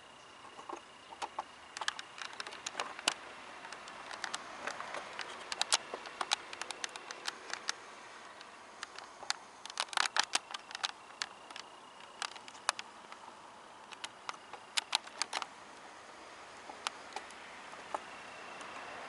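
Irregular sharp clicks and ticks in scattered clusters over a faint background hiss, with a thin, steady high tone that fades in and out.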